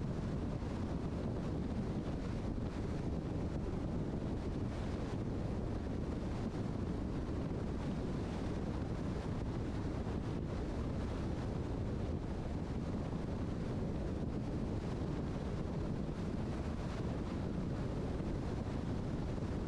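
Steady road and wind noise from a car driving, a low, even rumble.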